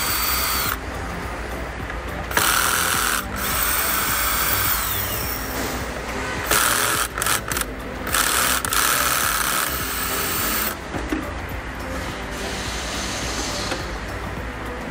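Cordless drill-driver running in several short bursts with brief stops between, backing out the screws of a moulded-case circuit breaker.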